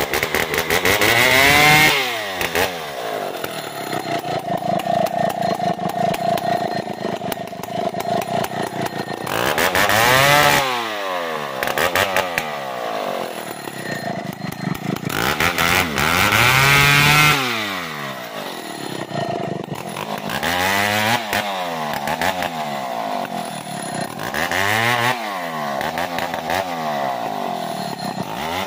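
Two-stroke chainsaw revved to full throttle in repeated bursts while cutting through undergrowth and saplings. It drops back to a steady idle between cuts.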